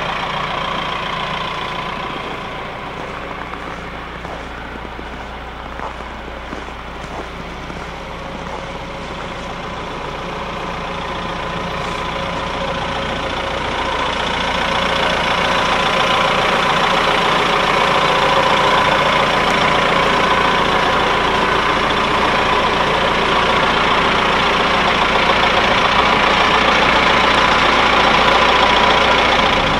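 Caterpillar IT28 wheel loader's diesel engine running steadily, growing louder about halfway through.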